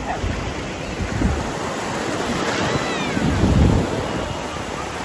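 Sea waves washing and breaking in shallow surf, with wind buffeting the microphone; the rumble swells strongest a little past the middle. A brief faint high cry sounds about two and a half seconds in.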